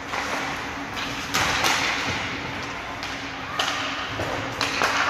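Ice hockey play on an indoor rink: a series of sharp knocks from sticks, the puck and the boards, scattered irregularly, over skates scraping the ice and a steady low hum.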